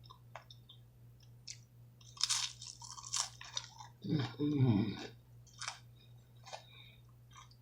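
A person chewing and crunching food close to the microphone, in irregular short bursts, with a short voiced hum about four seconds in.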